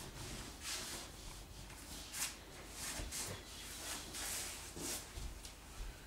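Faint rustling and rubbing of a masking strip being pressed along a skirting board by hand, in several short swishes, with a few soft footfalls on a wooden floor near the end.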